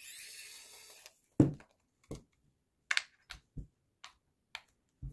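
A short scraping hiss, then a series of irregular small clicks and knocks, the loudest about a second and a half in. These come from working the battery compartment on the back of a plastic digital clamp meter with a screwdriver.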